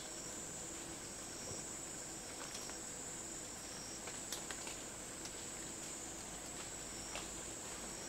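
Faint forest ambience: a steady, high-pitched insect chorus, with a few soft clicks scattered through.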